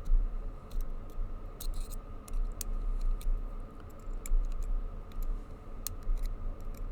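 Small, irregular metal clicks and ticks from a probe pushing down the pins of a tubular lock while a pick holds it under tension. Some pins are popping back up as the probe works around the circle. The clicks sound over a steady low hum.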